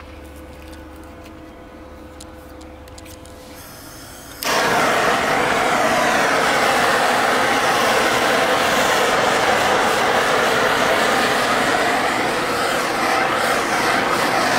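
Handheld gas torch lit with a sudden onset about four seconds in, then burning with a loud, steady hiss whose tone shifts as it is moved along the car window's edge.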